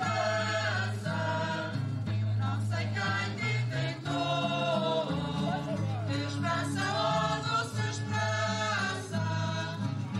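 Azorean folk music played live by a folklore group: guitars with sustained low notes and voices singing together over them.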